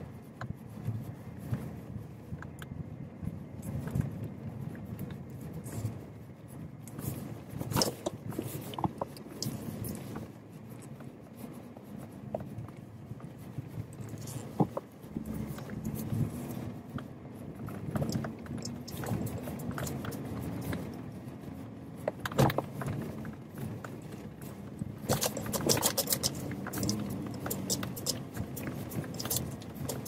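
Jeep driving over rough ground: a low engine hum, steadier and more pitched from about halfway in, with scattered rattles and knocks that cluster near the end.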